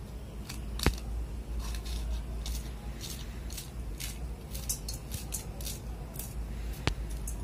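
Small kitchen knife cutting a green chilli held in the hand, a scattered run of short crisp snicks as the blade goes through the chilli, with a sharper click about a second in and again near the end. A steady low hum runs underneath.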